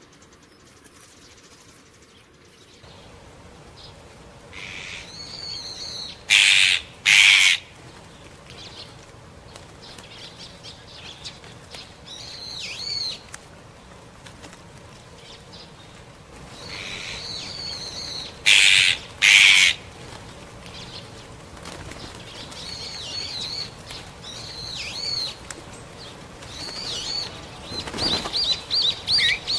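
Small birds calling: repeated thin, arched high chirps, twice broken by a pair of loud, harsh bursts, with a quick run of short notes near the end.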